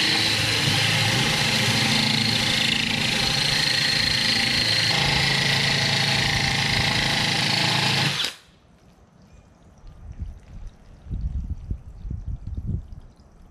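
Cordless drill with a diamond hole saw grinding through aquarium glass under water cooling: a steady motor whine over a grinding noise, with the bit nearly through the glass. It cuts off abruptly about eight seconds in, leaving only faint knocks.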